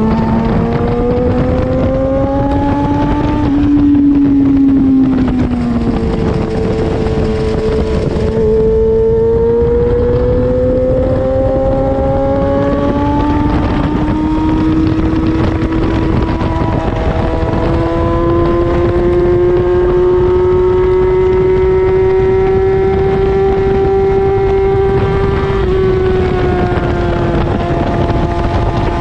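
Racing motorcycle engine pulling hard at high revs. Its pitch rises, eases back over a couple of seconds about four seconds in as the rider rolls off, then climbs steadily as the bike accelerates from about 60 to over 80 mph. Wind rushes over the microphone throughout.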